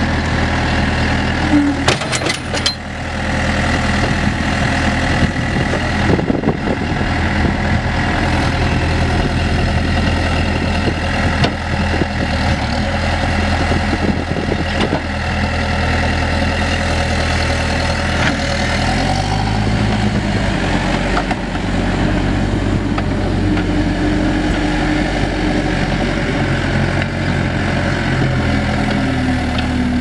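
Case 580 Super M backhoe's four-cylinder diesel engine running steadily, with its note shifting about two-thirds of the way through. A few sharp clicks come about two seconds in.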